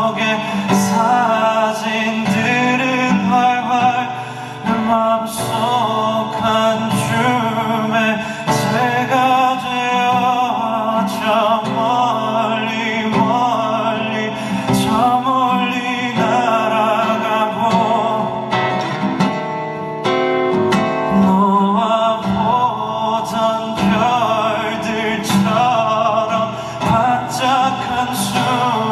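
Live pop performance: a male singer sings a melody over a band with guitar, bass and drums.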